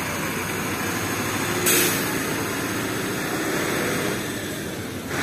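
Outdoor city ambience: a steady rumble of traffic and engines, with a short, loud hiss about one and a half seconds in.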